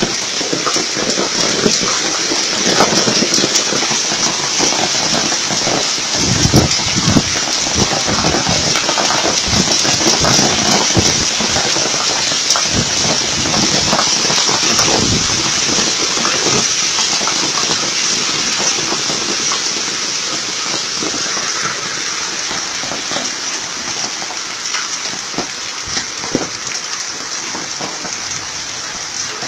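Hailstorm: hailstones and heavy rain pelting the pavement in a dense, loud clatter of countless small impacts over a steady hiss. It grows gradually quieter over the second half.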